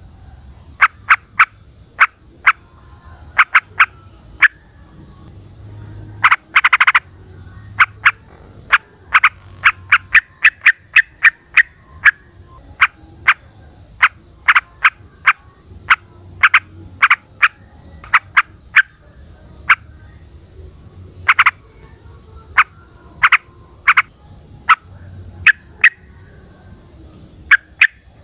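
Yellow-vented bulbul (trucukan) calling: short, sharp chattering notes repeated at irregular intervals, with a longer run of notes about six seconds in. Behind them runs a steady high insect buzz with a pulsing trill.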